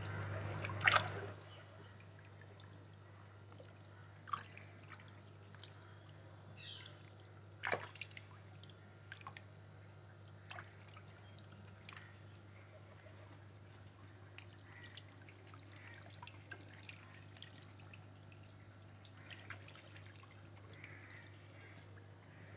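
Faint water splashing and dripping from koi being handled and jostling in shallow water: scattered single splashes and drips every second or two, the loudest near a second in and just under eight seconds in. A steady low hum runs underneath.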